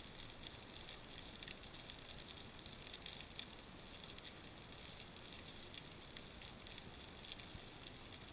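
Faint, steady underwater crackle picked up through a camera housing on a rocky seabed: a dense scatter of tiny clicks over a constant hiss, with no bubbles or breathing.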